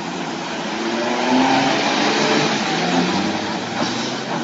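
Motor vehicle engine accelerating, its pitch rising and then easing off, loudest about a second and a half in.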